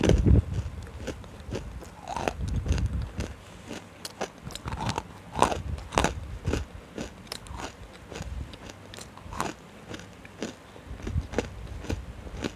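Dry, full-roasted nkumt clay lumps bitten and chewed right at a handheld clip-on microphone: an irregular run of sharp crunches and crackles over a low chewing rumble.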